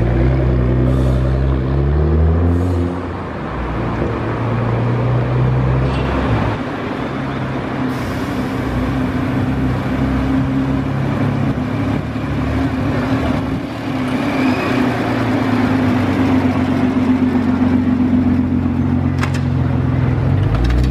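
Nissan GT-R R35 twin-turbo V6 engines running at low speed. The note rises in pitch over the first few seconds as a car pulls away, then settles into a steady low rumble.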